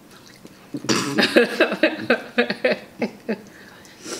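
A person bursts out laughing about a second in, a run of short rhythmic "ha" pulses that fades out over about two seconds.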